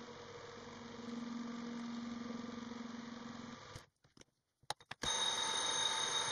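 Metal lathe running with a steady hum. It cuts off about four seconds in, a few clicks follow, then for about a second and a half a straight knurling wheel presses into the spinning workpiece with a bright, high ringing.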